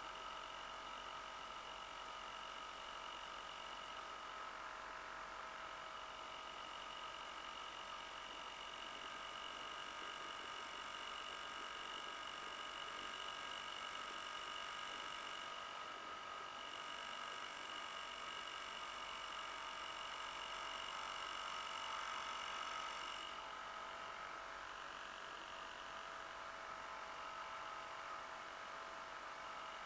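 Fifty-year-old Johnson 2 HP Seahorse two-stroke outboard motor running steadily, pushing a canoe at cruising speed, a constant humming drone; its note shifts slightly about three-quarters of the way through.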